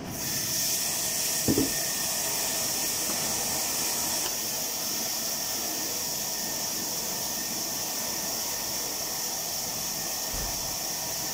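Food sizzling in hot oil in a pan, starting suddenly as it goes in and then holding steady, with one low knock about a second and a half in.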